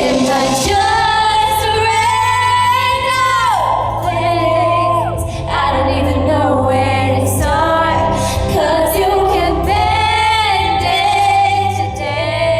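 A woman singing a slow pop ballad live, long held notes that bend in pitch, over steady instrumental accompaniment.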